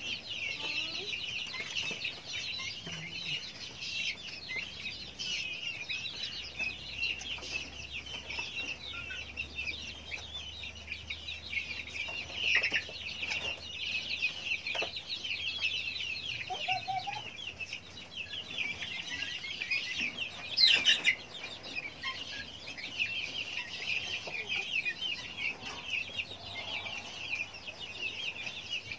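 A flock of young guineafowl calling constantly: a dense chorus of high, short chirps, with one louder call about two-thirds of the way through.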